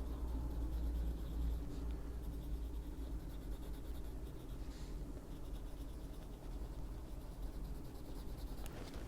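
Prismacolor coloured pencil shading on paper, a continuous soft scratching of the lead as it strokes back and forth, over a low hum.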